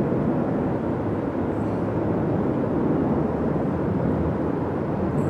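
Steady low rumble of distant jet aircraft engines at the airport, an even roar that neither rises nor falls.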